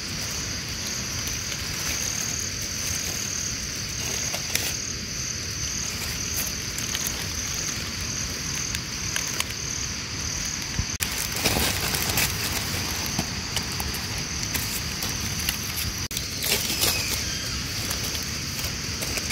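A steady, high-pitched insect drone with a faint regular pulse, over a low rumble. Bursts of crackly rustling, like leaf litter being moved, come about halfway through and again later.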